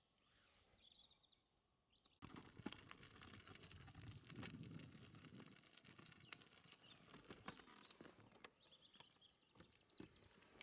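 Faint bird chirps, then from about two seconds in a sudden, steady run of crunching and small clicks of stones and gravel on a rough dirt track.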